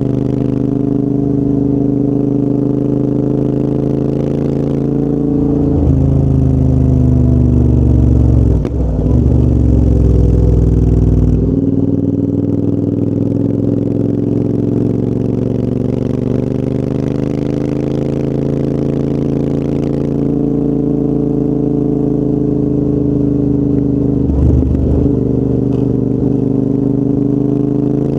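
Royal Enfield Interceptor 650's 648 cc parallel-twin engine breathing through a full TEC aftermarket exhaust while riding. The note rises and falls in pitch several times, with the deepest, loudest stretch about a third of the way in.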